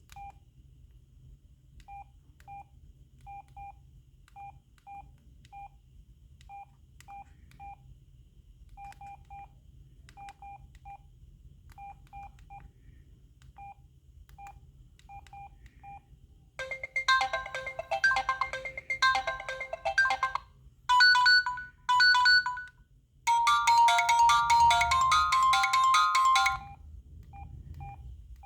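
Samsung SGH-X497 mobile phone playing its alarm tones through its small speaker: first a run of short high beeps in twos and threes, then about halfway through, much louder multi-note ringtone melodies in several runs with short breaks, and near the end the short beeps again.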